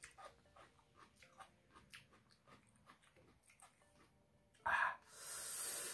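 Faint wet mouth clicks and lip smacks from a man chewing chili peppers, then about three-quarters of the way through a sudden sharp breath and a long hissing exhale through the mouth: the reaction to the burn of the chilies.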